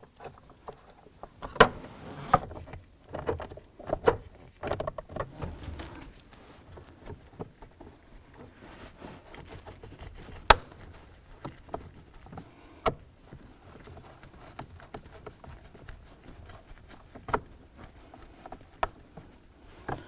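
Irregular clicks, taps and scrapes of a screwdriver driving Phillips screws into a plastic lower steering column cover, with a few sharper clicks standing out.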